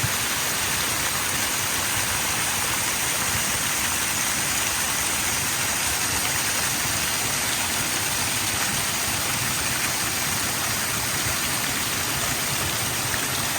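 Steady rush of Shiraito Falls, a wide, low curtain of spring water spilling over a rock face.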